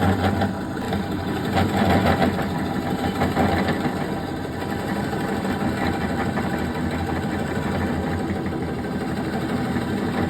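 Wood lathe running with a Forstner bit boring into the spinning black palm end of a vase blank: a steady motor hum under the rough noise of the bit cutting wood.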